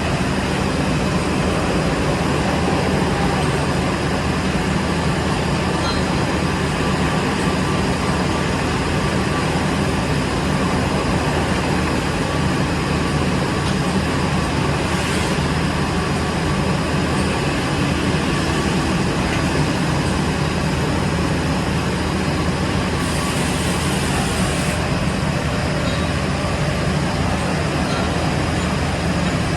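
Liebherr LC300 CNC gear hobbing machine running with a steady mechanical hum and whir. A brief high hiss, lasting about two seconds, comes in near the end.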